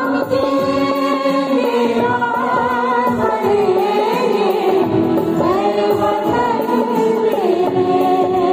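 A mixed choir of women and men singing together, accompanied by a harmonium.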